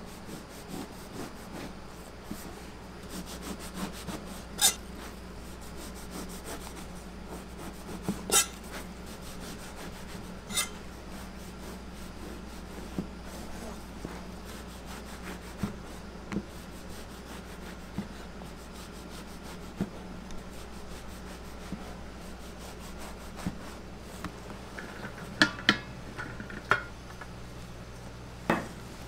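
A cleaver sawing through a soft loaf of white sandwich bread and trimming the slices, a soft rasping rub punctuated by a few sharp knocks of the blade on a plastic cutting board. A steady low hum runs underneath.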